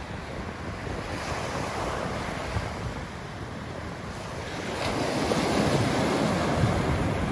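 Surf breaking and washing up a sandy beach, growing louder about two-thirds of the way through as a wave breaks close in. Wind buffets the microphone.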